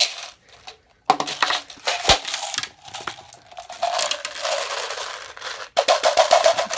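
Bean Boozled jelly beans being poured out and rattling: sharp clicks and crackling that start about a second in and grow denser and louder near the end.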